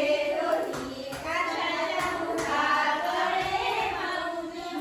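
A group of women and girls singing a fugdi folk song together, several voices overlapping in chorus.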